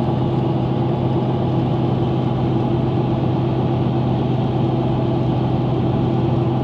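Car engine and road noise heard from inside the cabin while cruising at a steady speed: a steady, unchanging drone with a low hum.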